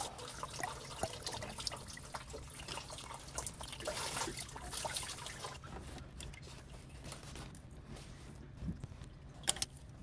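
Pliers working a hose clamp and a coolant hose off the engine's water pump: small clicks and scrapes, with coolant dripping and trickling, heaviest in the first half. A sharp click near the end.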